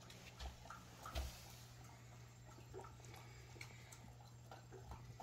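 Near silence: a steady low hum of room tone, with a few faint soft taps, the most noticeable about half a second and a second in.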